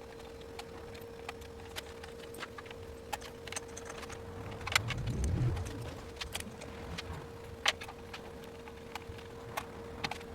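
Scattered light clicks and taps of hand tools and metal parts being handled during reassembly of an electric dirt bike, with a low bump about five seconds in, over a faint steady hum.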